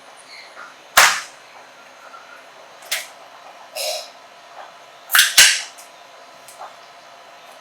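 Sharp, isolated knocks or hits, five in all: the loudest about a second in, others near three and four seconds, and a quick pair a little past five seconds, over a faint steady hum.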